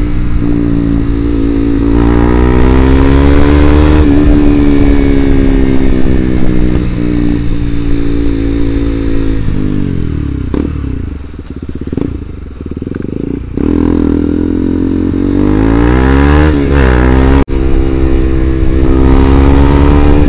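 KTM Duke 200's single-cylinder engine on the move, loud through an aftermarket Akrapovic full-system exhaust with the dB killer removed. The revs climb and drop back again and again, fall away as the bike eases off around the middle, then climb again. A brief sudden dropout comes near the end.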